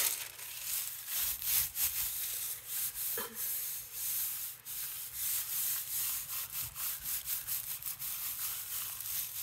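Hands rubbing a sheet of tissue paper down onto an inked gel printing plate, a continuous uneven papery rustle of palms and fingers sliding over the paper. The rubbing burnishes the tissue so that it picks up the paint left on the plate.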